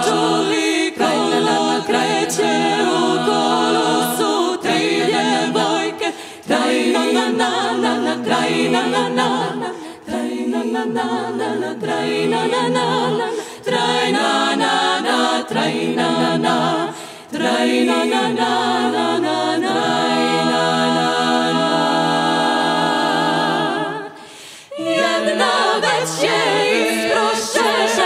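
Women's klapa group singing a cappella in close multi-part harmony, phrase after phrase, with short breaths between phrases and a brief break near the end.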